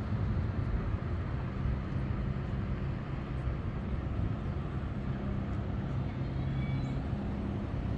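Steady low engine rumble of a motor vehicle running, with a faint hum held at an even pitch throughout.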